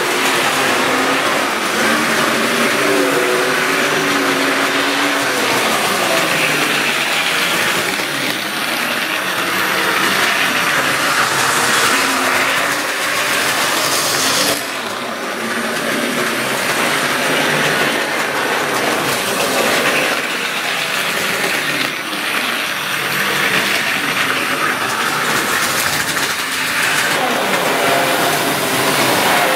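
Triang model trains running on steel track: a steady whir and rattle of small electric motors and wheels, with a faint motor whine at times.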